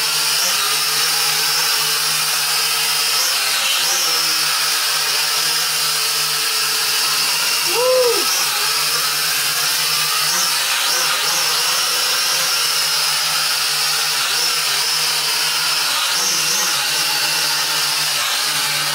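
Small quadcopter drone hovering, its motors and propellers buzzing steadily with brief rises and dips in pitch as it is steered, the biggest swell about eight seconds in. The buzz cuts off suddenly at the end.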